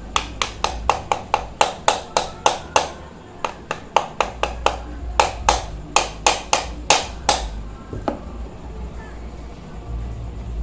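Repeated sharp metal taps while the ceiling fan's rotor and housing are fitted together, about four taps a second in two runs with a short break, then one last tap.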